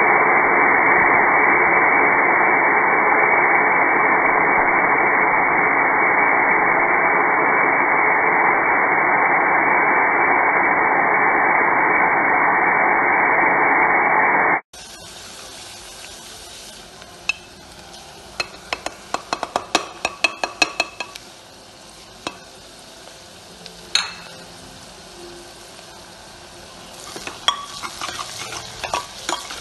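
Stovetop pressure cooker venting steam through its whistle weight: a loud, steady hiss that cuts off abruptly about fifteen seconds in. After that, a metal ladle clinks and scrapes as onions are stirred and fry in the open cooker.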